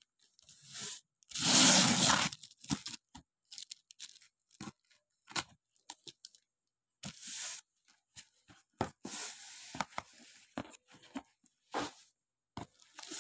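Clear packing tape being ripped off a cardboard box: one long, loud tearing rip about a second in, then shorter rips, clicks and rustles as the cardboard flaps are pulled open.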